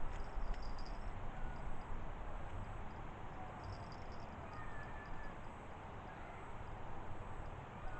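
Outdoor ambience by a pond: a steady rumbling hiss with a few faint bird calls and a high, ticking insect chirp.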